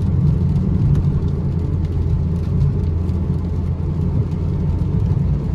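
Inside the cabin of a small car driving slowly on a wet road in heavy rain: a steady low rumble of engine and road noise.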